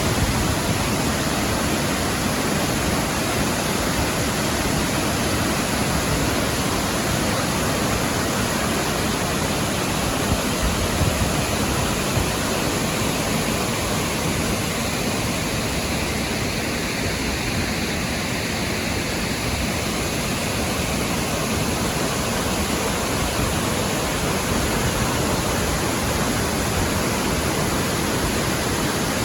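Steady rushing of flowing or falling water, an even hiss that stays at the same level throughout.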